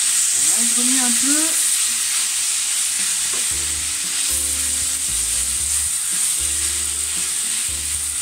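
Leek and carrot ribbons sizzling in hot olive oil in a stainless-steel frying pan while a spatula stirs and tosses them: a steady frying hiss.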